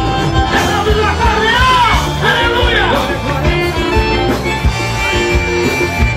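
Live gospel band music with a steady beat and sustained chords, with voices rising and falling over it.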